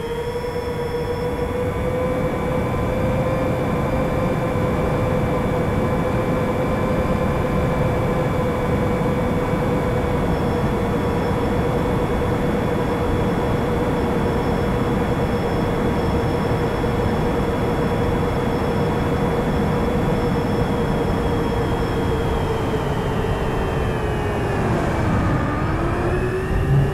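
iFlight DC7 HD FPV quadcopter's brushless motors and propellers whining at a steady pitch, heard close up through the onboard RunCam Split 4's microphone over a rush of air noise. Near the end the pitch drops as the throttle comes off, then climbs back up.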